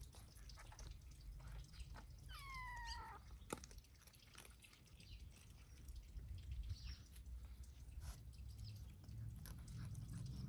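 A kitten mews once, a short cry falling in pitch about two and a half seconds in, over faint scattered clicks and a low rumble.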